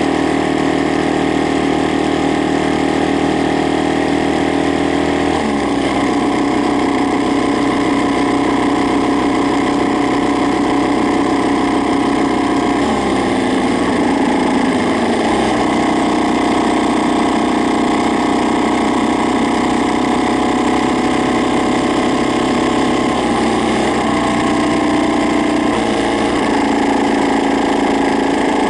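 Honda Ape motorcycle's single-cylinder four-stroke engine running at idle, its engine note shifting in pitch a few times. It is making a loud abnormal noise.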